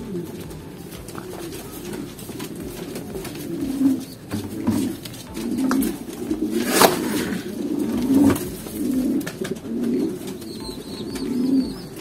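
Caged fancy pigeons cooing, low coos repeating again and again and overlapping. A short sharp noise cuts in a little past halfway.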